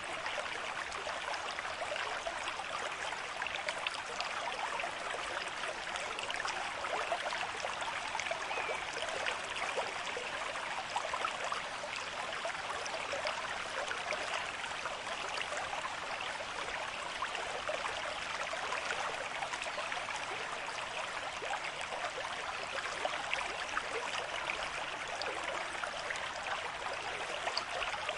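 Shallow river stream with moderate flow, water running and babbling over stones in a steady, even rush.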